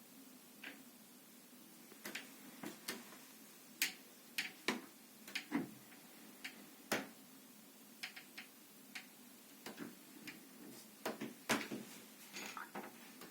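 Wooden wardrobe door knocking and clicking against its frame as it opens slightly and settles back: a series of light, irregular taps, some in quick clusters, with a few louder knocks.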